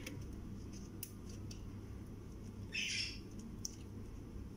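Cream being spooned into a plastic food-processor bowl: a few faint spoon clicks over a low steady hum, with one short high squeak about three seconds in.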